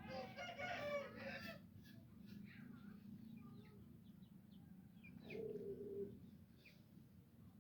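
Domestic fowl clucking: a quick run of short calls in the first second and a half, then a single lower call about five seconds in, over a faint low hum.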